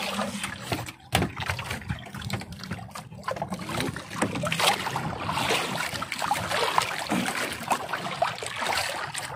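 Wet fishing net being hauled by hand over the side of a small outrigger boat, with water dripping and splashing off the mesh back into the sea and small knocks against the boat. A sharp knock comes about a second in.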